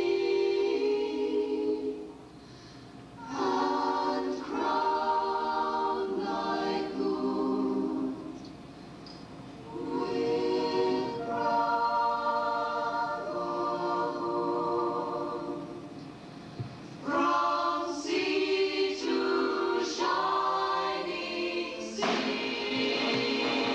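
A choir singing long held chords in phrases, with short pauses between them about two, eight and sixteen seconds in.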